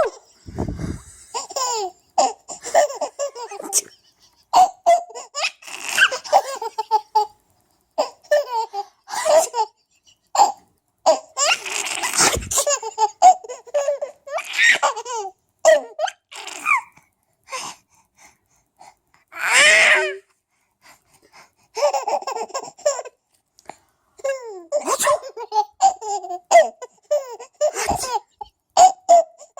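A baby laughing in short, breathy, sneeze-like bursts, with pauses between them. The loudest outbursts come about twelve and twenty seconds in.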